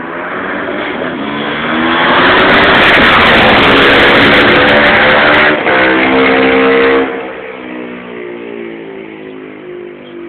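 Motorcycle engine revving hard: it builds over a couple of seconds and stays loud, with a brief break about five and a half seconds in. About seven seconds in it drops off sharply and carries on quieter, its pitch climbing in steps.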